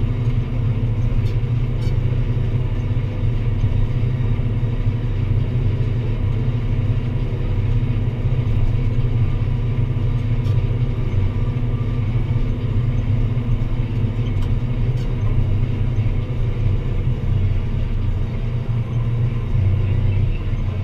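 Deutz-Fahr Agrotron 165 MK3 tractor's six-cylinder diesel engine running steadily with a low rumble while pulling a plough through the field.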